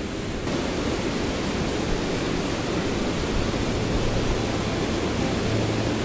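Waterfall's rushing water: a steady, even rush that grows louder about half a second in.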